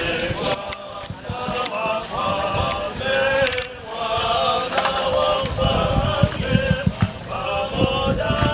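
A crowd of mourners singing a chant together in short repeated phrases, with scattered sharp knocks and a run of low thumps in the second half.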